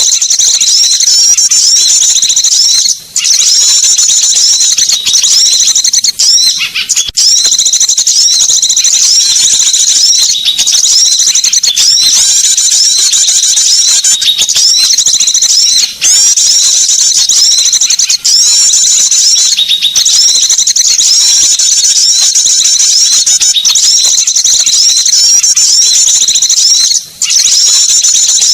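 Bird-lure recording of small songbirds: a loud, dense, continuous high-pitched chirping and twittering, with a few brief gaps where the recording appears to loop.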